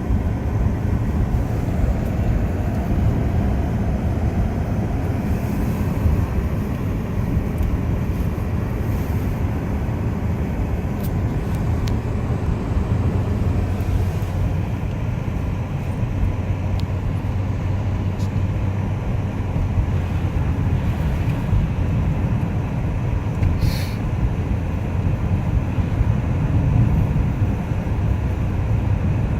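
Steady low rumble of a car driving, heard from inside the cabin: tyre, road and engine noise, with a few faint clicks.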